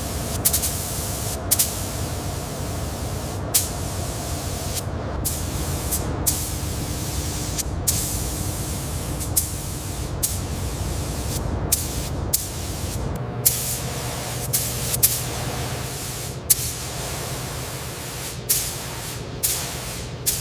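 Compressed-air hiss in many short bursts that start and cut off abruptly, over a steady low machine hum whose tone changes about two-thirds of the way through.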